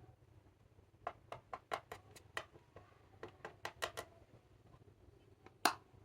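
Clear slime being squeezed and worked by hand, giving a quick run of about a dozen small popping clicks, then one louder pop near the end.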